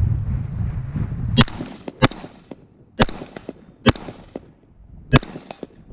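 Five rifle shots from a Colt M4 carbine with a 14.5-inch barrel, fired singly at irregular intervals of about a second, with wind buffeting the microphone during the first second or so.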